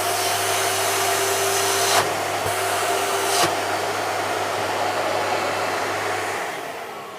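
National vacuum cleaner motor running at full power, its speed control disabled so it runs straight at full speed, during a test of its suction after repair. Near the end it is switched off and winds down, fading away.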